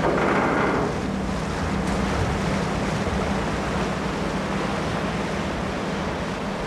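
A ferry under way: a steady low engine hum over the rushing and churning of water, with a louder rush in the first second.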